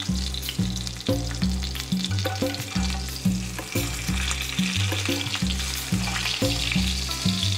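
Hilsa fish steak sizzling in hot mustard oil in a cast iron skillet as a metal spatula lifts it, under background music with a steady, repeating bass line.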